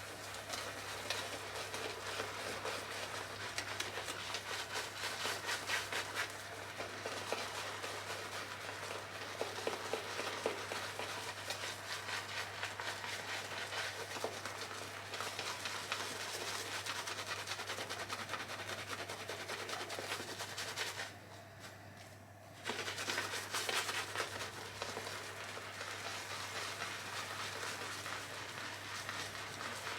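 Razorock Hulk shaving brush, heavily overloaded with soap, whipping up lather: a continuous wet swishing made of many rapid strokes, pausing briefly about 21 seconds in.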